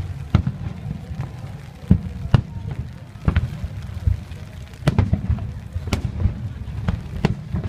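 Aerial fireworks bursting: a string of sharp, irregularly spaced bangs and cracks, about one or two a second, over a steady low rumble.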